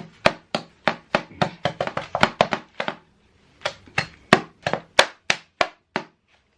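Rolling pin whacking peppermint candy in a bag on the kitchen counter, crushing it into chunks: rapid sharp strikes, several a second, a brief pause about three seconds in, then more strikes a little slower.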